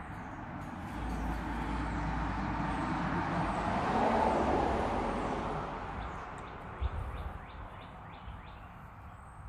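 A vehicle passing by, growing louder to a peak about four seconds in and then fading away. Birds chirp faintly near the end.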